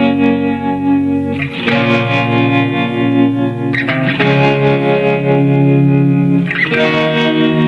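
Background music: sustained chords that change about every two and a half seconds.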